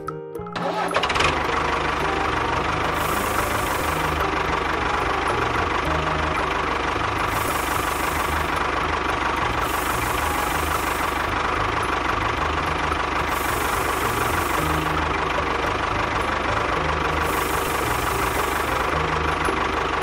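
DIY miniature toy tractor running with a steady engine-like drone that starts about a second in, as it pushes sand with its bulldozer blade.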